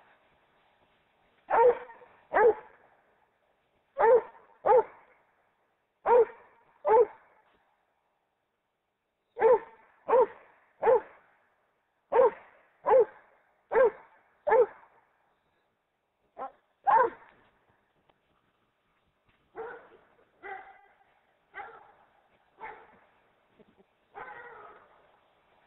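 Rhodesian Ridgeback barking repeatedly at an approaching figure, mostly in pairs of sharp barks under a second apart with short gaps between pairs. Near the end the barks turn softer and hoarser.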